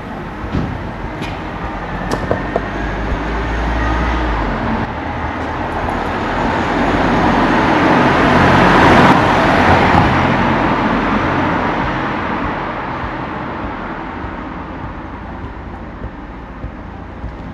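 A motor vehicle passing by on the road: its engine and tyre noise swells to a peak about halfway through, then fades away.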